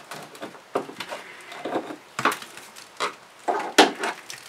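A hand tool scraping, prying and crunching into rotted wood of a wooden boat's deck and deck beam, in irregular strokes with sharp splintering clicks. The strokes are loudest near the end. The wood is rotted through and breaks away in small pieces.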